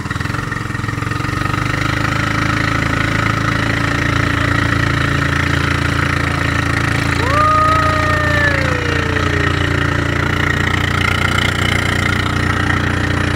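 Outrigger boat (bangka) engine running steadily under way, with water rushing along the hull. About seven seconds in, a person's drawn-out call rises sharply and slowly falls away.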